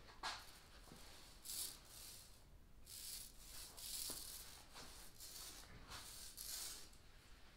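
Small foam roller rolling a wet coating onto plywood and being worked in a metal paint tray: a few faint, soft swishing strokes.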